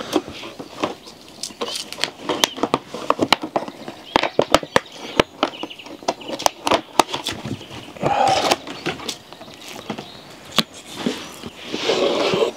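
Cooking clatter: irregular sharp knocks and clicks of a knife and utensils as food is prepared, with two short louder stretches about eight and twelve seconds in.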